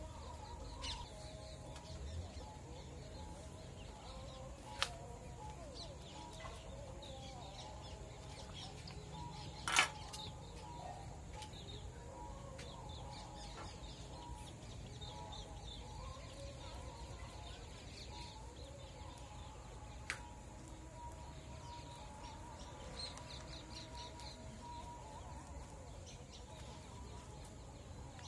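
Chickens clucking and small birds chirping in the background, with three sharp clicks, the loudest about ten seconds in.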